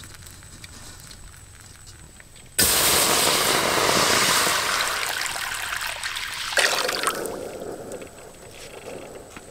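Water pouring into a hot wok over a wood fire, sizzling loudly as it hits the metal. It starts suddenly about two and a half seconds in, surges again about six and a half seconds in, then dies down to a bubbling simmer.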